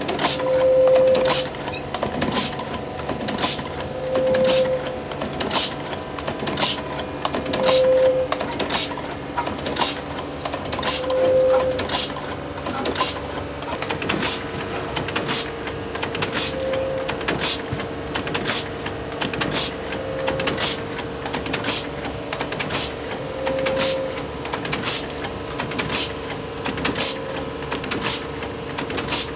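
Automatic gyoza-making machine running, back in working order: a steady mechanical hum with regular clacks about twice a second and a short tone every three to four seconds.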